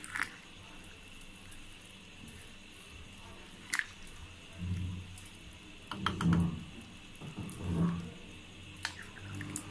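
Wooden spoon stirring soaked rice into hot chicken stock in a pot: wet sloshing in a few strokes, with a few sharp clicks.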